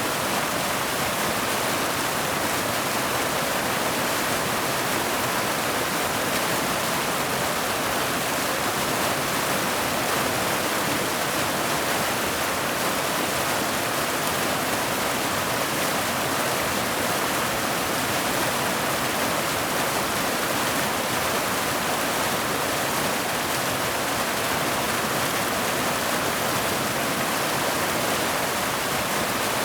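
Waterfall cascading down boulders into a pool: a steady, unbroken rush of falling water.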